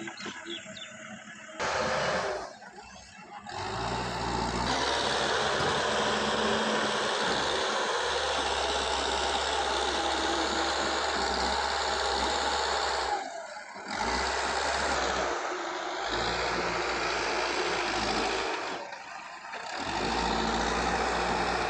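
Heavy diesel engine of earthmoving machinery running steadily, with a dense wash of noise over its hum; the sound drops away abruptly several times.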